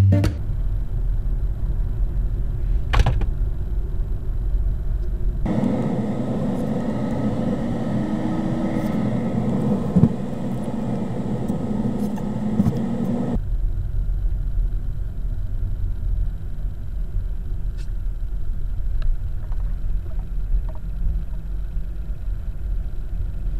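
Car driving, heard from inside the cabin: a steady low road and engine rumble. For about eight seconds in the middle the noise turns abruptly fuller and brighter, with one sharp knock partway through, then drops back to the low rumble.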